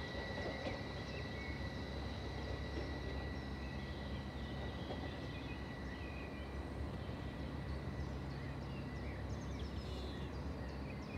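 Low rumble of an electric train pulling away and dwindling into the distance, under a steady high-pitched whine, with small birds chirping, most of them near the end.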